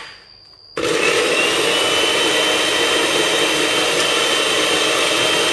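Electric blender switched on suddenly about a second in, running steadily as it grinds a chili sambal paste, with a thin steady whine above the grinding.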